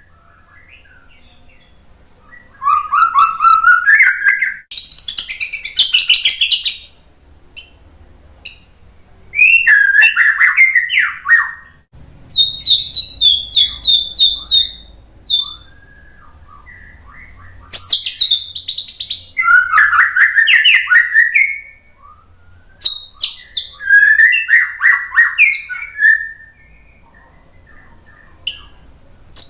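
White-rumped shama (murai batu) singing: about six loud, varied phrases of whistles and fast chattering notes, separated by short pauses. One phrase is a quick run of repeated sharp notes.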